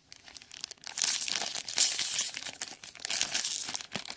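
Foil wrapper of a Magic: The Gathering booster pack crinkling and tearing as it is torn open by hand, starting about a second in.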